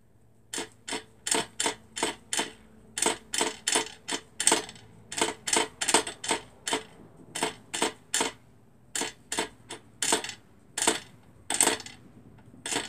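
Thread being wound by hand onto a sewing-machine bobbin: a quick, even run of short, sharp strokes, about two or three a second, one with each turn.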